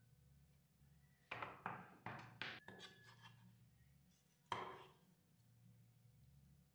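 Knife cutting into a roast chicken on a board: five quick cuts within about a second and a half, then one more cut a couple of seconds later.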